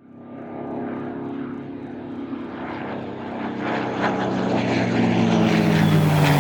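Propeller aircraft engine running, growing steadily louder with its pitch sliding slowly down, like a plane approaching and passing.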